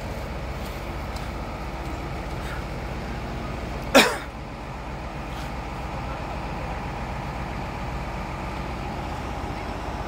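A large diesel bus idling with a steady low hum, and one sharp, loud clank about four seconds in as workshop tools are stowed in the bus's luggage hold.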